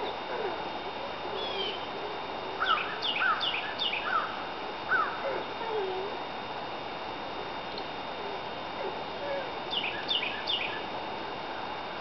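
Songbird calls: two runs of quick, sharp downslurred notes, one a few seconds in and one near the end. Under them is a dog's fainter on-and-off whining.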